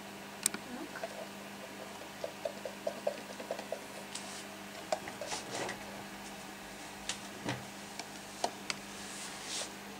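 Light clicks, taps and brief rustles of small items being handled at a gecko enclosure, scattered irregularly over a steady low hum.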